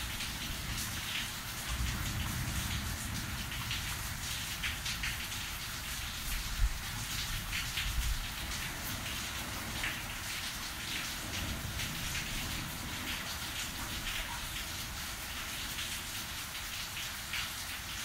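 Steady rain falling in a thunderstorm, with single drops hitting close by over an even hiss. A low rumble swells and fades underneath, and one louder sharp tap comes about halfway through.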